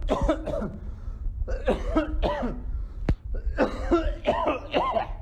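A man coughing repeatedly in three clusters of short coughs, recorded on a phone over a steady low rumble.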